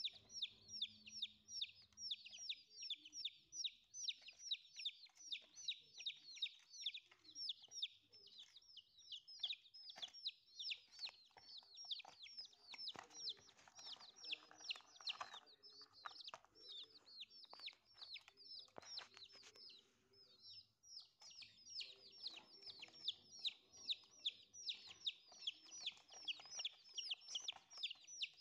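Young domestic chicks peeping continuously: short, high calls that fall in pitch, about four a second, with a brief lull about two-thirds of the way through.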